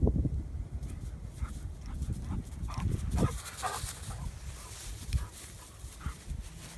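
A golden retriever nosing in the grass, with a few short dog noises around the middle. Wind rumbles on the microphone at the start.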